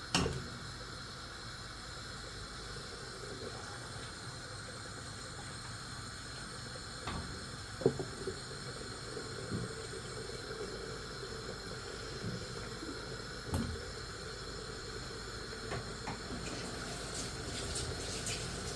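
Pot of dal (lentils) cooking on the stove, a steady hissing bubble, with a few light knocks.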